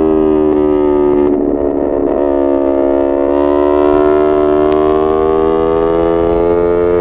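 Yamaha MT-03's 321 cc parallel-twin engine running at high revs through an SC-Project full titanium exhaust under way. The note wavers briefly about a second and a half in, then the revs climb slowly.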